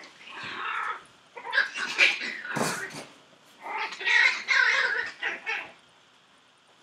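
Chihuahua puppies making high-pitched yelping cries while play-fighting, in three bouts with short pauses between.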